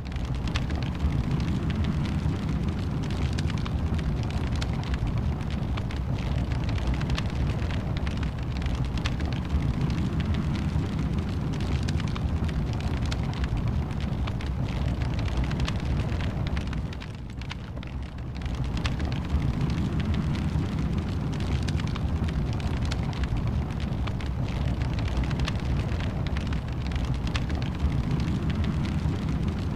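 Wood fire burning in a fireplace: a steady low rumble of flames with frequent small crackles and pops. It drops quieter for about a second around two-thirds of the way through, then carries on as before.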